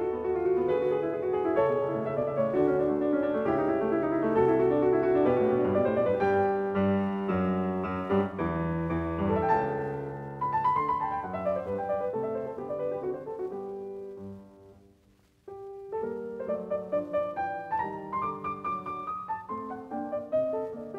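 Background piano music. It fades away about fifteen seconds in, and the piano starts again half a second later.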